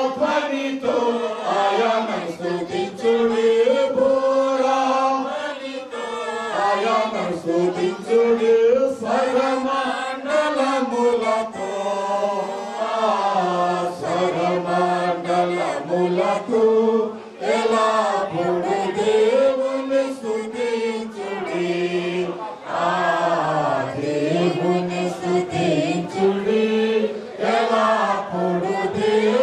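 A group of voices singing a hymn together, the melody moving over a steady low held note.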